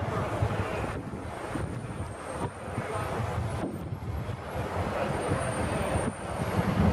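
Low, steady rumble of city street traffic, with no distinct single event standing out.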